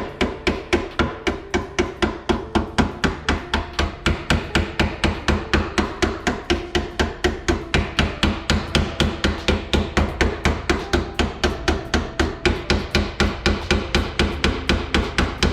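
Hand hammer beating the steel body panel of a 1994 Jeep Grand Cherokee in body work, with fast, even blows about four to five a second.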